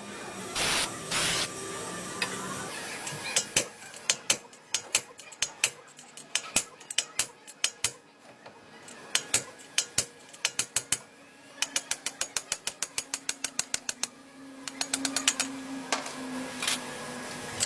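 Hand tools working on a car: sharp metallic clicks and taps, scattered at first, then fast runs of about nine a second, like a ratchet or rapid tapping. Two short bursts of noise come about a second in.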